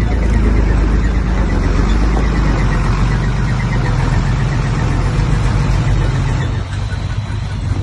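Heavy diesel engine of earthmoving machinery running steadily, a little quieter near the end.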